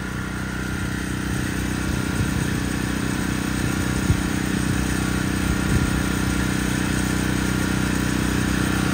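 Steady hum of an idling engine, a constant drone under general city street noise, with a couple of faint knocks midway.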